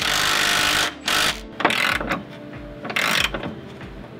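Cordless electric ratchet whirring in bursts, a long run of nearly a second and then shorter ones, as it drives the bolts of the rear subframe's front bracket. Metal clicks of a hand ratchet follow near the end.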